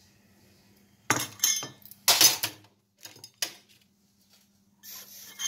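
Stainless steel vessel and metal tongs clattering as the hot vessel is set down: two loud bursts of metallic knocks about one and two seconds in, then a few lighter clinks.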